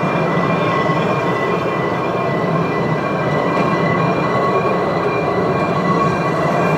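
Narrow-gauge railway carriages rolling past close by: a steady rumble and rattle of wheels on the rails, with faint high wheel squeal coming and going as they take the curve.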